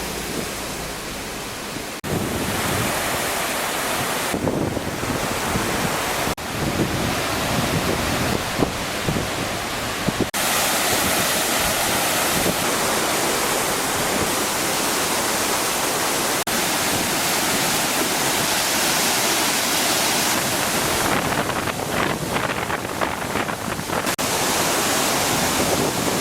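Swollen Kino River in typhoon flood, its rushing water a steady loud noise mixed with wind buffeting the microphone. The sound changes abruptly several times, at cuts between shots.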